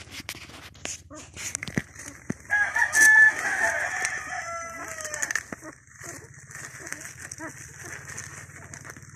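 A rooster crowing once. The call starts about two and a half seconds in and lasts about three seconds, its last note drawn out and falling. A low steady hum and small scattered clicks run underneath.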